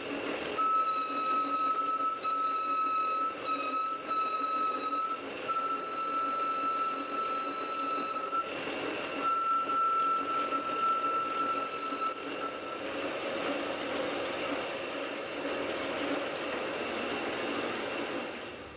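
Metal lathe cutting a spinning metal bar with a carbide turning insert: a high, steady squeal from the cut, breaking off briefly twice, over the running noise of the machine. After about twelve seconds the squeal stops and a duller cutting noise carries on.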